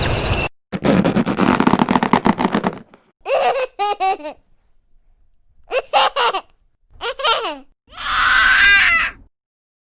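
A small child giggling in several short bursts with pauses between them, a stock giggle sound effect. It follows about two seconds of a dense crackling, rattling effect near the start.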